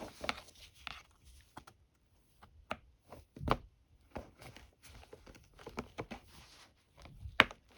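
Scattered plastic clicks and knocks from the housing clips of an Oreck XL9100 upright vacuum being pried apart by hand, with a duller knock about three and a half seconds in and a sharp click near the end.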